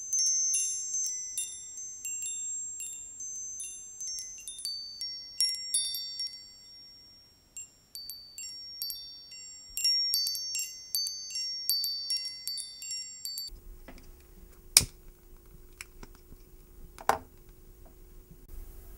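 High-pitched metallic chimes ringing in an irregular cascade of overlapping notes, which stops abruptly about two-thirds of the way through. After that comes a low steady hum with two sharp clicks a couple of seconds apart.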